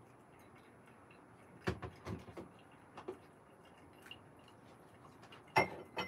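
A faint trickle of water poured from a gooseneck kettle into a pour-over dripper, then a few light knocks and clinks, and a louder knock with a short ring near the end as the kettle is set down on its base.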